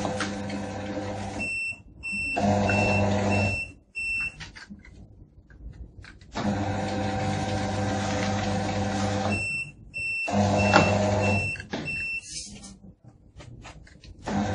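QMAX NF-1 needle detector at work: the conveyor motor hums, then a string of short high-pitched alarm beeps, about two a second, sounds as the test needle is detected. The belt hum cuts out, runs again briefly and stops. The cycle happens twice.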